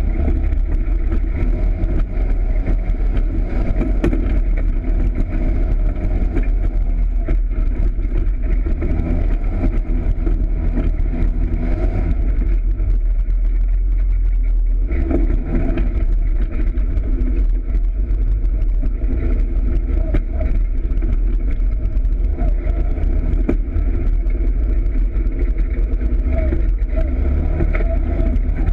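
Polaris RZR side-by-side's engine running under way on a rough dirt trail, a steady deep drone whose pitch rises and falls with the throttle.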